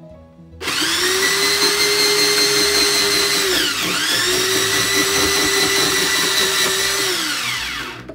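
Moulinex Fresh Express electric slicer/grater motor running while slicing red cabbage: a loud, steady whine that starts under a second in. Its pitch dips sharply once about halfway and picks back up, then it winds down and stops near the end.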